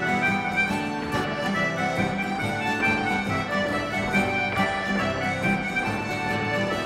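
Traditional Manx folk dance tune played for the dancers, with a steady beat.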